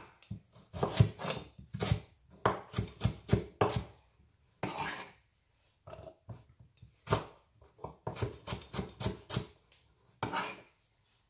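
Kitchen knife chopping carrots into small pieces on a wooden cutting board: sharp knocks of the blade on the board in quick runs with short pauses.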